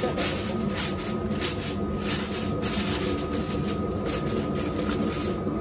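Aluminium foil crinkling and crackling in irregular rustles as a sheet is pressed and crimped over a foil pan, over a steady hum.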